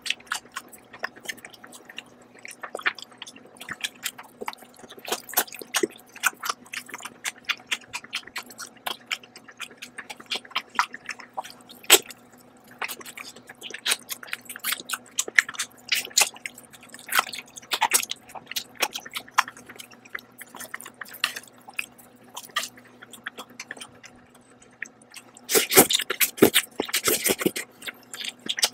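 Close-miked chewing of noodles and chicken: a run of wet mouth smacks and clicks. Near the end there is a longer, louder slurp as noodles are sucked in.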